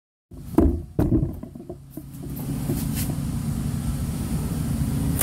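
Two low knocks near the start, like the phone being handled, then a steady low mechanical hum, like a running engine or motor, sets in about two seconds in and holds.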